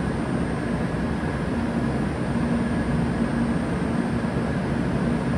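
Steady hum of a JR West N700 series 7000 Shinkansen standing at the platform with its onboard equipment running: an even rushing noise with a faint steady low drone underneath.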